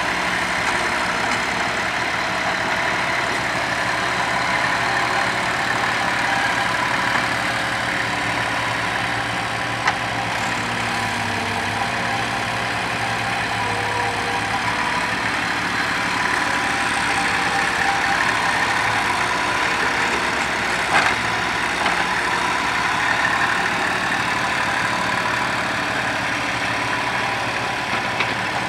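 An old mini crawler excavator's diesel engine runs steadily, with its engine cover off, while the hydraulics work the boom and bucket digging soil. Two short sharp clanks come about ten seconds in and again about twenty-one seconds in.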